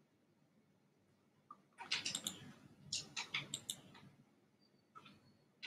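Faint computer mouse clicking: a quick run of clicks about two seconds in, then another cluster a second later, while the next page of the e-book is clicked open.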